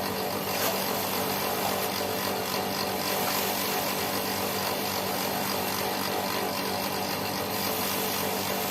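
Electric power grinder running steadily under load, a constant hum under a dense hiss of abrasive on steel, typical of grinding a knife blade.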